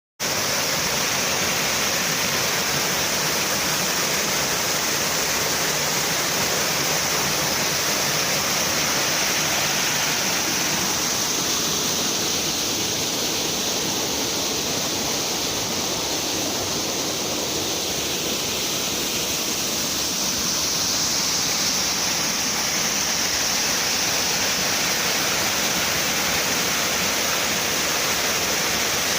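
Small waterfall, water falling and splashing in a steady rush.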